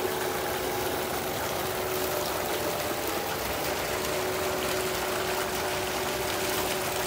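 Tube well outlet pipe gushing a heavy jet of water into a concrete tank: a steady, unbroken rush of churning water with a steady hum underneath.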